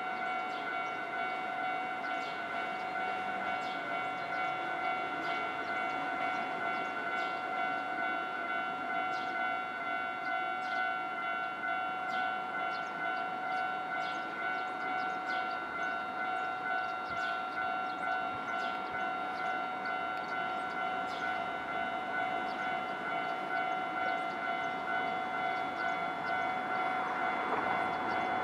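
Japanese railway level-crossing warning bell ringing continuously in a steady, even repeating pulse, with a rushing noise growing near the end.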